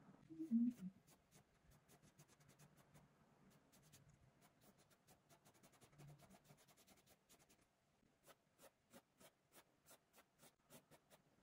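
Paintbrush dabbing and scratching on stretched canvas: faint quick taps and scrapes, with a run of about three taps a second near the end. A short low tone, falling slightly, is the loudest sound, about half a second in.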